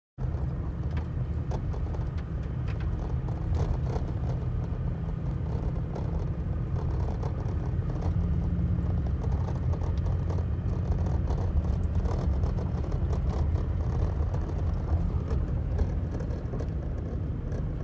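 Vehicle driving on an unpaved dirt road, heard from inside the cab: a steady low rumble of engine and tyres with scattered light rattles and ticks.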